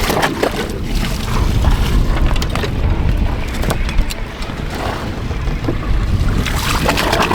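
Wind buffeting the microphone over the wash of sea water around a stopped sailing yacht, with scattered knocks.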